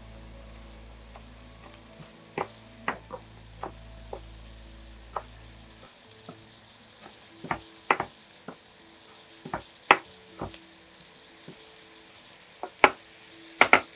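Kitchen knife chopping parsley on a cutting board: a dozen or so sharp, irregular taps.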